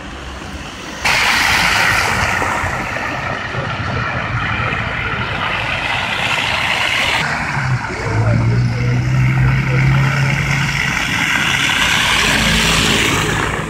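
Traffic on a slushy, snow-covered street: tyres hissing through wet slush, starting abruptly about a second in, with a low engine hum from a passing vehicle around the middle.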